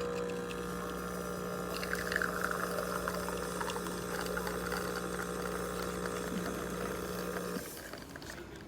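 De'Longhi La Specialista espresso machine's pump running as liquid pours, a steady hum that cuts off about a second before the end.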